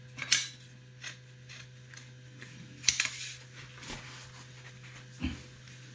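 Lever-type pipe bender being worked on a length of copper pipe to put a slight kick in it. The bender and pipe give scattered metal clicks and creaks, the loudest clack about three seconds in and a duller knock near the end.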